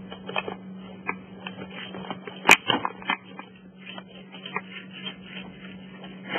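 Small objects being handled and set down, with scattered light clicks and taps and one sharp, loud click about two and a half seconds in, over a steady low hum.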